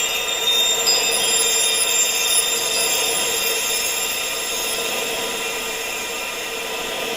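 A tinnitus sound-therapy track: many steady high-pitched ringing tones held over a hiss of wind-like noise. New high tones come in about a second in.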